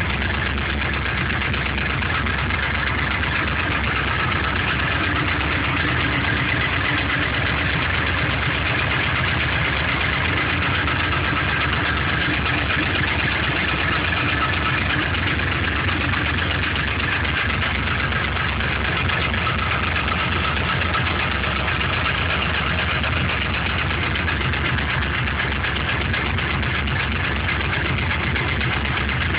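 GM LS1 5.7-litre aluminium-block V8 idling steadily just after a cold start, with a noise that the owner wonders may be piston slap.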